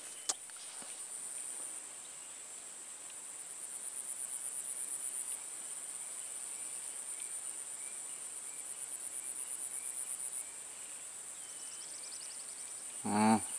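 A steady, high-pitched insect trill with a fast pulse, a little louder through the middle.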